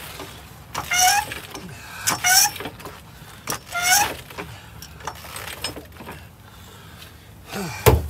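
Hydraulic floor jack being pumped by its long handle, a squeak with each stroke, three times about a second and a half apart. A heavy low thud comes near the end.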